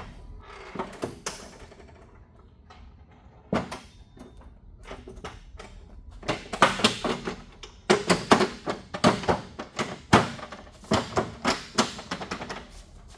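Plastic clicks and clunks from a GE Panda infant warmer's bed and clear side panels being worked by hand in a function check after the bed is replaced. There is one sharp knock a few seconds in, then a quick run of clicks and knocks through the second half.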